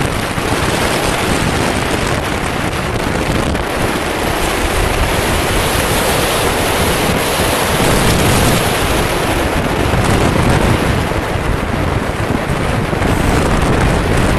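Heavy wind buffeting the microphone of a motorcycle riding at about 48 km/h: a loud, steady rushing noise with the bike's road and motor sound mixed beneath.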